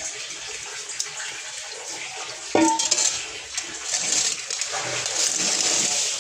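Running water splashing as dirty washing-machine drain valve parts are rinsed clean, with a sharp knock of a part against a hard surface about two and a half seconds in.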